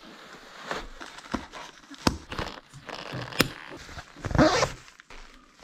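Irregular rustling handling noise with sharp clicks, and a longer rasping rustle about four seconds in.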